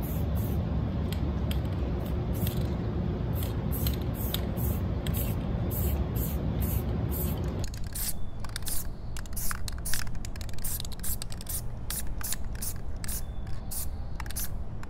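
Aerosol spray-paint can spraying onto a wall in many short hissing bursts, about two a second.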